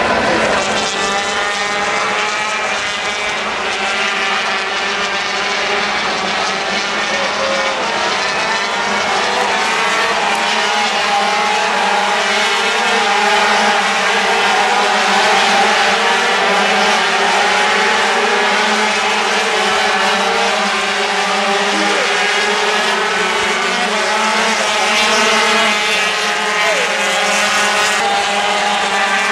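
A pack of 125cc two-stroke single-cylinder Grand Prix racing motorcycles running at high revs, many engines overlapping, their pitches rising and falling through gear changes.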